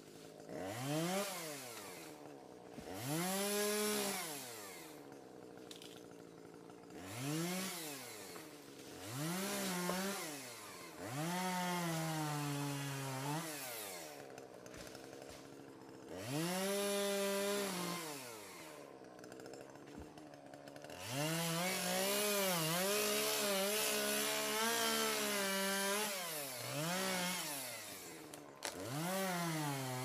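Chainsaw cutting through a log. The motor revs up and falls back again and again, and holds at speed under load for a few seconds at a time while the chain chews through the wood. The longest steady cut comes a little after the middle.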